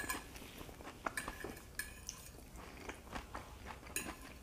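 Metal fork scraping and clinking against a plate while picking up salad: a few short, sharp clinks spread through, with faint chewing between them.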